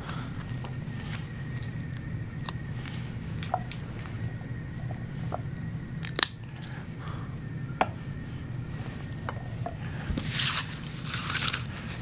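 Hands working with glass candle cylinders and adhesive tabs: scattered light taps and clicks of glass on metal and wood, with a short papery rustle near the end, over a low steady room hum.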